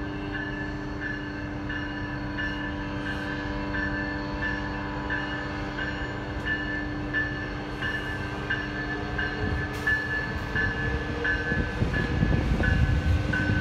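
RTD A Line electric commuter train running past on the rails, its rumble and a rising motor whine growing louder near the end. Under it runs a steady low drone, and a chiming tone repeats about every half second.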